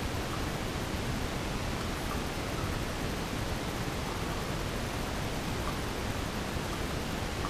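Steady, even rush of flowing water in a cave, an unchanging hiss with no distinct events.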